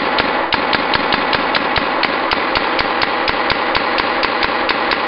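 Brass Eagle T-Storm paintball marker on a high-pressure air tank, dry-fired (no paint) in rapid semi-auto: sharp pops about five a second over a steady hiss of air. It is very loud, and it stops suddenly at the end.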